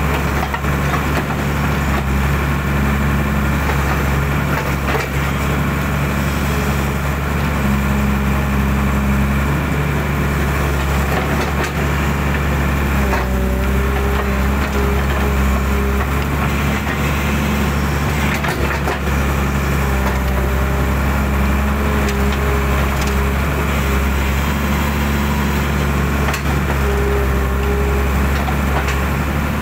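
Hydraulic excavator's diesel engine running steadily under load, with the hydraulic pump's whine coming and going as the boom and bucket move, and scattered faint knocks.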